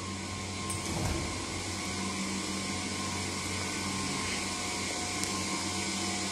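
Refrigeration condensing units, compressors with their fans, running with a steady hum.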